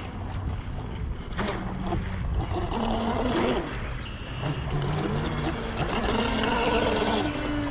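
Radio-controlled boat's motor running across the water, its whine stepping up and down in pitch with the throttle as it pulls up to and tows a floating RC monster truck.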